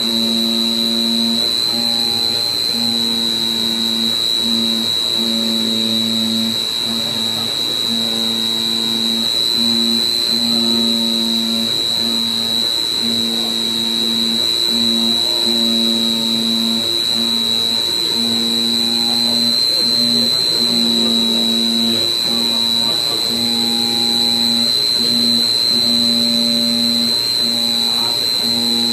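Background guitar music with a steady beat, over a constant high-pitched whine that is louder than the music.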